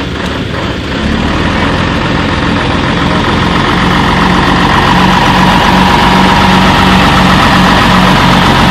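Heavy vehicle engine running steadily, getting louder about a second in and then holding.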